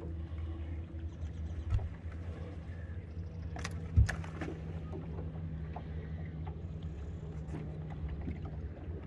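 Steady low hum of a boat's motor running, with two knocks on the boat while a catfish is handled out of the landing net; the second knock, about four seconds in, is the louder.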